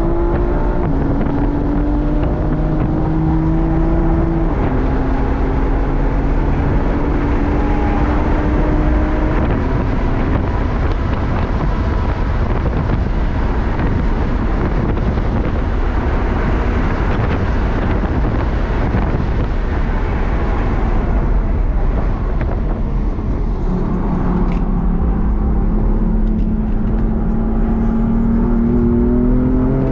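BMW M4 Competition's twin-turbo straight-six engine at full throttle on a race track, heard from inside the cabin. The engine note climbs and drops back at upshifts around 4 and 9 seconds in, then runs hard with heavy wind and road noise. Its pitch falls as the car brakes a little after 20 seconds, then it climbs again, with another upshift at the very end.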